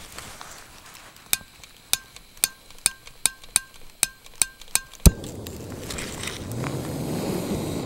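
Piezo igniter of a backpacking canister stove clicking about a dozen times, roughly three a second, until the gas catches with a single loud low pop about five seconds in. A steady rushing noise follows.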